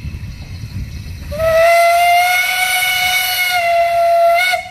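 Steam whistle of a small 0-4-2 narrow-gauge steam tank engine sounding one long blast on the approach to a siding, starting about a second in and lasting a little over three seconds. The pitch rises slightly as it opens, drops a little partway through, lifts briefly just before it cuts off sharply.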